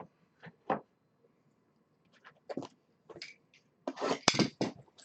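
Trading cards and their packaging being handled: scattered light taps and short rustles, with a denser run of rustling about four seconds in.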